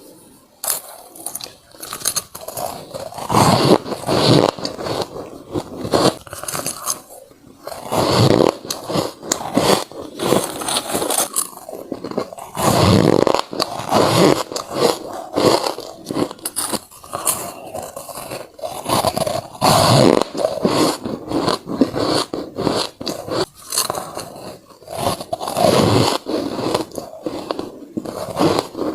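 Ice being bitten and chewed close to the microphone: a continuous run of crunching, crackling bites, with heavier crunches every few seconds.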